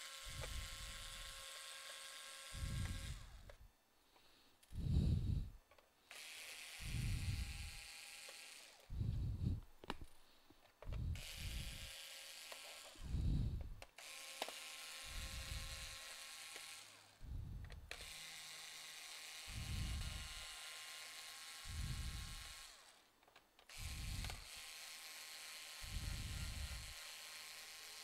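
Small cordless electric screwdriver running in repeated short spells of one to a few seconds, backing screws out of a laptop's plastic bottom case. Dull thumps come between the runs.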